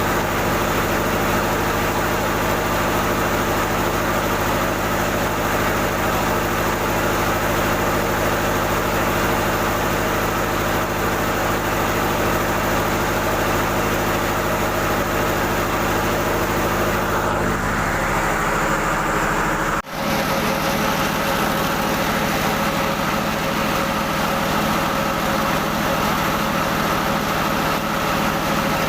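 Rice mill machinery running steadily: an old N50 rice husker and polisher with their drive. About two-thirds of the way through, the sound changes and cuts out for a split second, then the machinery runs on with a slightly different pitch.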